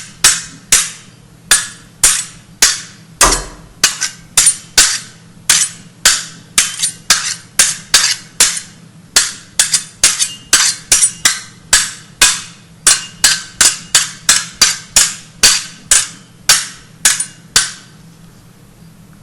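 A hammer striking again and again, about two to three sharp blows a second at an uneven pace, each with a short ring, stopping near the end. A faint steady low hum runs underneath.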